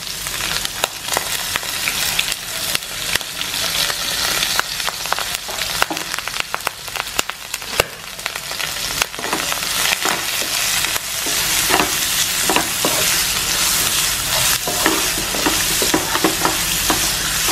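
Chopped onions and green chillies sizzling in hot coconut oil in a nonstick pan, with a wooden spatula clicking and scraping against the pan as they are stirred. The sizzle grows louder about halfway through.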